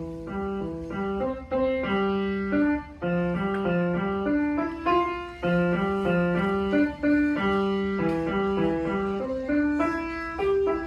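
Solo piano playing a lively piece, the notes starting right at the beginning. A low accompaniment line runs under a quicker melody of short notes, several a second.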